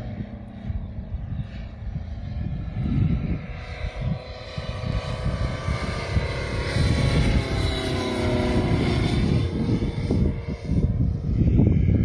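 Radio-controlled scale model Fokker D-VII biplane flying overhead, its engine's pitch shifting as it passes and sliding down about two-thirds through. Gusty wind rumbles on the microphone, growing stronger near the end.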